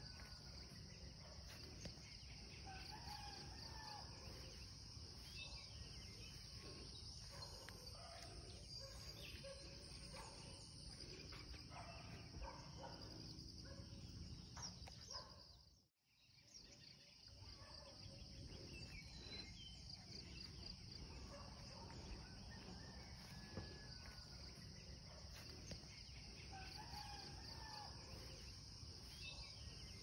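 Rural nature ambience: a steady high chorus of insects with scattered bird calls over a low rumble. About halfway through it fades out to silence for a moment and then comes back in.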